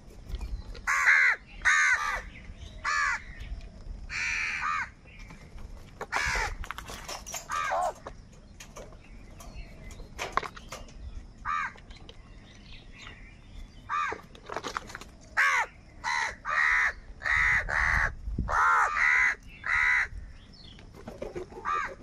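Crows cawing: repeated short, harsh caws, bunched in the first few seconds, sparse in the middle, then a quick run of calls in the second half.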